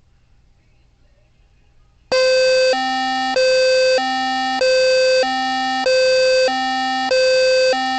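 Eton FR-300 weather radio's built-in alert alarm going off for a severe thunderstorm warning. It starts about two seconds in: a loud electronic two-tone beep that switches between a higher and a lower pitch roughly every half second.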